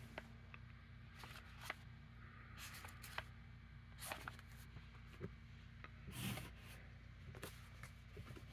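Pages of a small paperback book being flipped by hand: faint papery rustles and light flicks, with somewhat louder rustles about two and a half, four and six seconds in.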